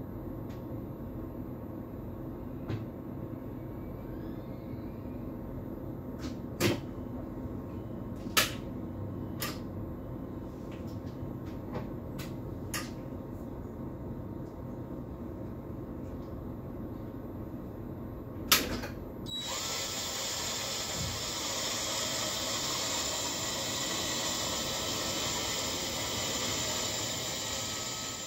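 Steady low hum in an electric train's driver's cab, broken by a few sharp clicks. Roughly two-thirds of the way through, a loud steady hiss starts abruptly and keeps going.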